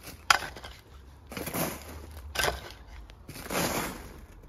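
Spade scooping and tipping loose soil onto a foil-covered tray in an earth cooking pit, burying it. A sharp knock comes just after the start, then three rushes of earth landing, about a second apart.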